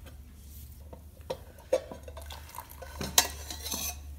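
Stainless-steel cookware clinking and scraping as a steel plate lid is lifted off an inner steel vessel inside a pressure cooker, a few separate clinks with the sharpest a little after three seconds in. A steady low hum runs underneath.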